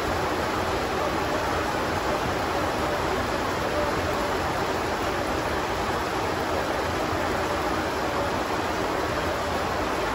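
Heavy rain falling steadily onto a sheet-metal roof and the ground around it.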